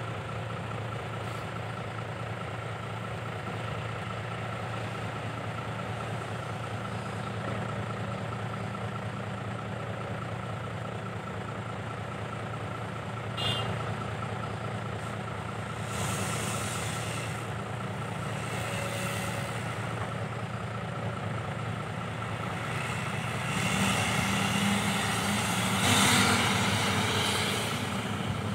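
Isuzu Deca dump truck's diesel engine idling steadily, with several short bursts of hiss over it that grow louder in the last few seconds.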